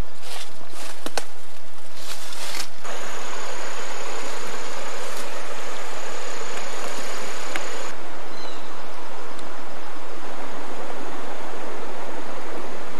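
A few steps crunching through dry leaves, then the steady rushing hiss of a woodland stream, with a thin, steady high whine over it for a few seconds.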